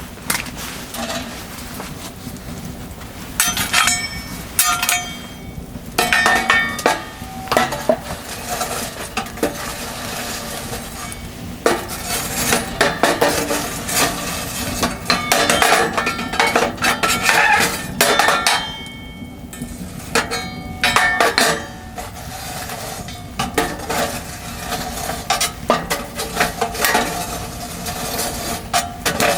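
Metal cookware and utensils clinking, knocking and scraping at irregular intervals, some knocks leaving a short metallic ring, with quieter pauses between bursts of handling.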